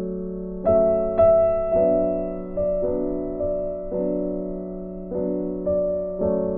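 Background piano music: slow chords struck about once a second, each fading before the next, over a steady low note. The strongest strikes come about a second in.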